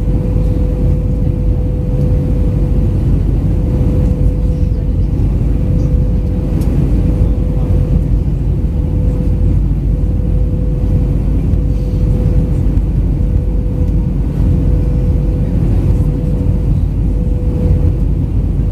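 Steady cabin roar inside an Airbus A319-112 airliner in flight: engine and airflow noise heard from a window seat, low and even, with a thin steady tone running through it.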